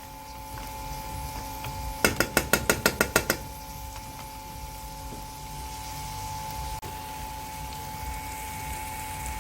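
Cookware clatter: a quick run of about eight sharp metallic taps two seconds in, like a metal spoon knocked against a pot, over a steady low hum.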